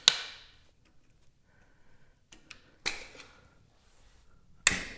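A few sharp knocks and clacks of handling, each ringing briefly off the walls of a hard-surfaced garage. One comes at the start, one about three seconds in, and two close together at the end, with only faint rustling between.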